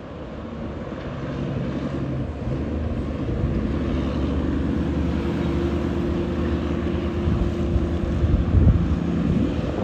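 Heavy diesel truck engines running as a line of trucks and cars approaches, the drone growing louder over the first few seconds and then holding steady, with some wind on the microphone.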